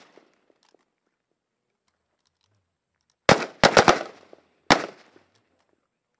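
Kalashnikov-pattern assault rifles firing on an open range: four quick shots a little over three seconds in, then one more shot about a second later, each followed by a short echo.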